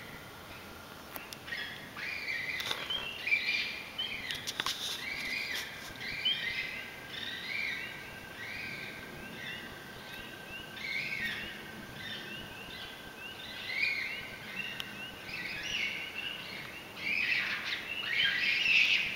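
Unidentified animal screaming in distress, a long run of short high-pitched calls repeated over and over, crowding together and loudest near the end.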